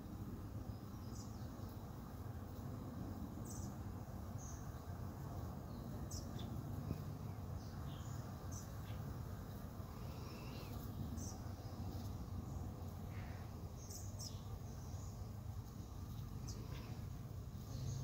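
Honey bees buzzing in flight around a hive entrance, a steady low hum, with short high bird chirps scattered throughout.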